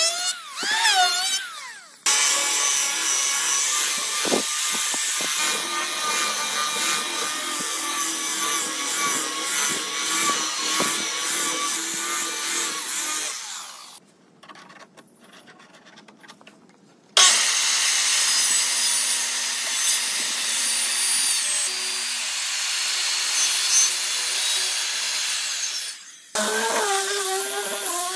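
Power tool working wood in two long runs, with a near-quiet gap of a few seconds around the middle. Brief snatches of music open and close the stretch.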